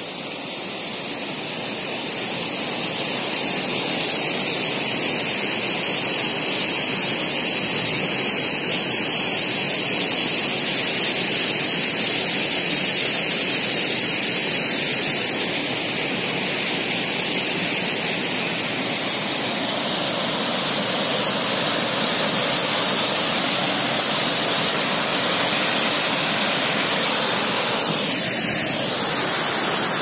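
Small waterfall pouring steadily into a pool, a constant rushing of falling water.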